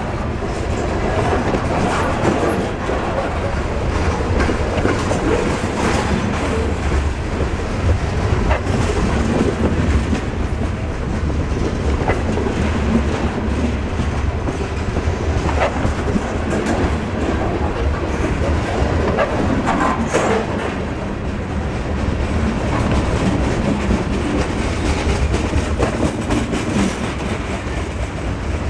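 Freight train cars rolling past at track level: a continuous rumble of steel wheels on rail, with clacks as the wheels cross rail joints.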